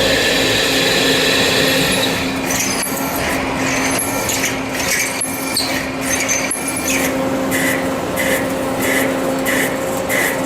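CNC turning center machining: a steady machine hum under cutting noise. From about seven seconds in, a regular pulsing comes roughly every 0.6 seconds.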